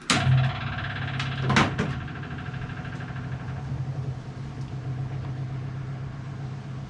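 Rebuilt Reliant 750cc four-cylinder race engine on its first start, firing at once, with a loud burst about a second and a half in, then settling into a steady idle.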